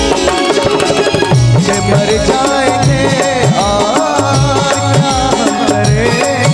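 Live stage band playing a Hindi film song: a steady drum beat under a wavering melody line.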